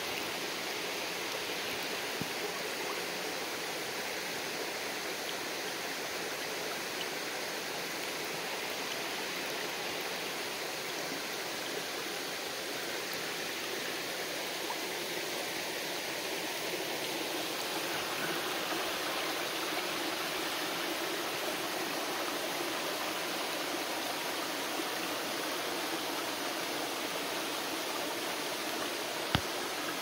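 Shallow creek water running and babbling over rocks, a steady rush that grows a little louder about halfway through. One sharp click sounds just before the end.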